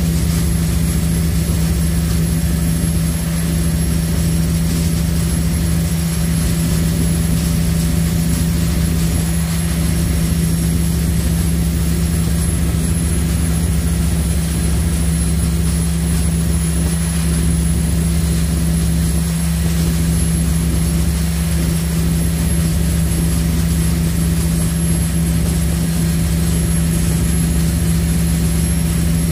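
High-speed passenger ferry's engines running at cruise, a loud steady low drone with no change in pitch.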